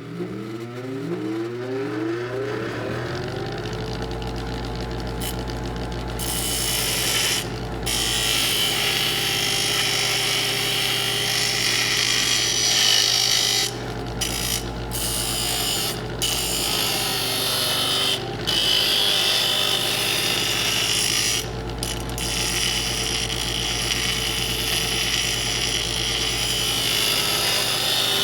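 Electric grinder switched on: the motor spins up with a rising whine over the first couple of seconds, then runs at steady speed. After a few seconds a harsher grinding hiss comes in and drops out briefly several times.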